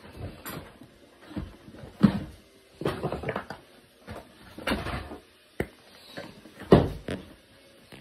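Handling noise: irregular knocks, thumps and rustling from objects being moved about, with the loudest thump near the end.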